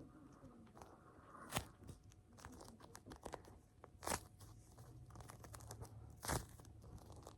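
A squishy toy being handled and squeezed, making faint crinkling and crackling sounds, with three sharper clicks spread through.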